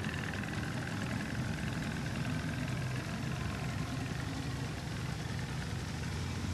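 An engine running steadily at low speed: a low hum under an even hiss, without change.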